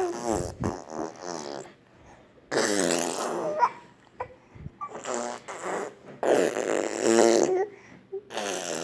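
A young child making fart-like raspberry and buzzing mouth noises mixed with babbling, in several bursts of about a second each with short pauses between.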